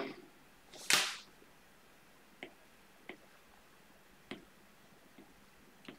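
A short, breathy rustling hiss about a second in, then four faint, sharp clicks, spaced irregularly, from a stylus tapping on a tablet screen.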